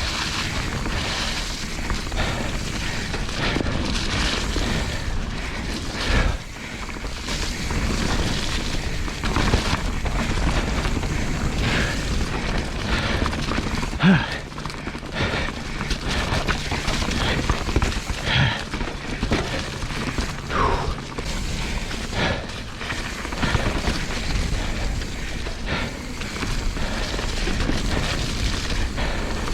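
Mountain bike rattling and knocking over a wet, rough trail, with frequent sharp knocks, heard through a body-mounted action camera. Wind rumbles on the microphone.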